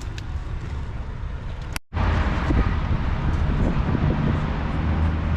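Wind buffeting the microphone outdoors over a steady low rumble, cut off by a brief dropout just under two seconds in and louder after it.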